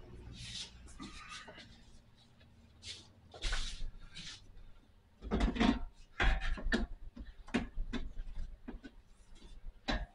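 A 3-row aluminum radiator being handled and worked down into a car's engine bay: irregular knocks, scrapes and rubbing as it is shifted and fitted, busier and louder in the second half.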